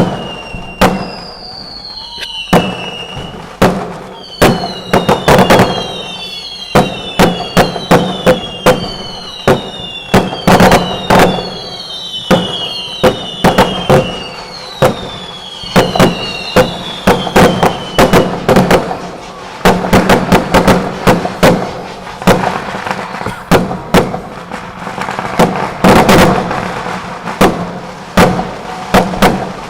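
Fireworks going off in a rapid, continuous string of sharp bangs. Many whistling rockets add whistles that fall in pitch, mostly in the first half.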